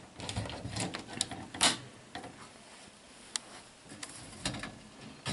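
Scattered clicks, taps and rustles of handling around glass terrariums, the loudest tap about one and a half seconds in.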